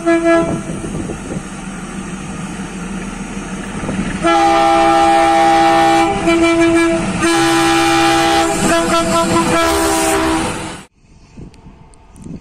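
Diesel locomotive approaching and sounding its horn over the engine noise, the horn getting much louder about four seconds in and held in long blasts with two short breaks. The sound cuts off abruptly near the end.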